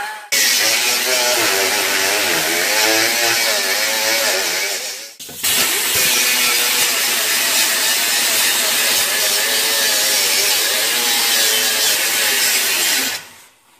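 Pneumatic angle grinder with a 36-grit sanding disc grinding sheet steel, cleaning off old spot-weld remains. Its whine wavers in pitch as the load on the disc changes. It stops briefly about five seconds in and dies away near the end.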